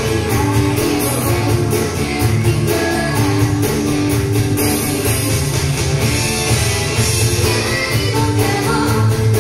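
Live pop-rock band with a female lead vocal over guitar, bass and a steady drum beat. It is played back through JBL 4344 loudspeakers and picked up by a microphone in the room.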